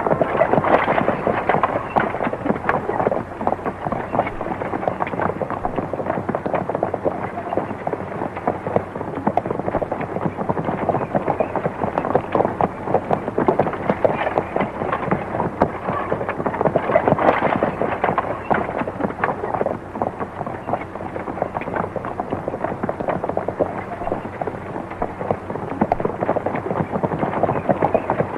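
Horse teams' hooves and wagon wheels clattering with harness rattling: a dense, continuous rattle of a horse-drawn wagon train on the move.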